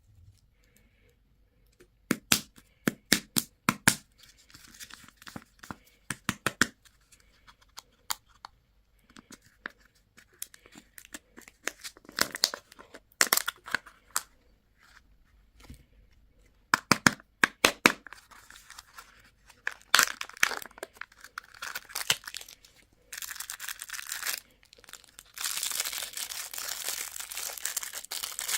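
Candy wrapper being crinkled and torn open: a run of separate sharp crackles, then near the end a steady, continuous crinkling rustle.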